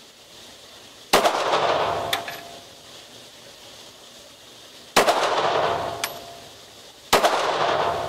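Three shots from a SIG P226 9mm pistol, spaced a few seconds apart, each echoing for about a second in an indoor range. A light clink follows about a second after each of the first two shots.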